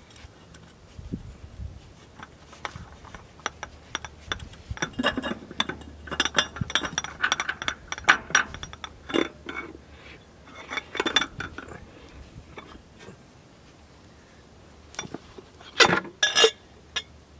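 Metal parts clinking and tapping by hand as a filter and its gasket are fitted and tightened on a Farmall M tractor engine, in irregular small knocks, with a couple of louder clinks near the end.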